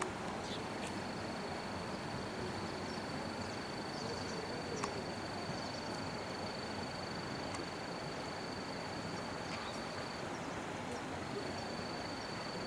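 A steady, high-pitched tone holds for about ten seconds, stops briefly near the end, then resumes, over a constant outdoor background hiss with a few faint clicks.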